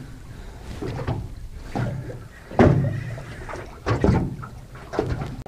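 Irregular knocks and slaps on a small aluminium boat's hull, about four in a few seconds, over a low steady rumble of sea.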